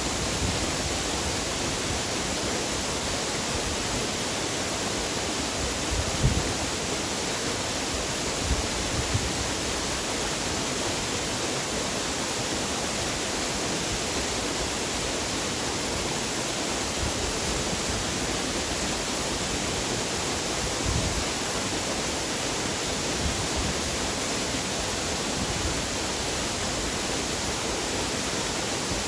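Waterfall: a steady, even rush of falling water, with a few brief low bumps about six seconds in, around nine seconds and near twenty-one seconds.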